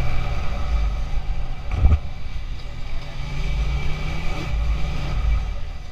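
Motorcycle engine running steadily as the bike rides along a road, with a single brief knock about two seconds in.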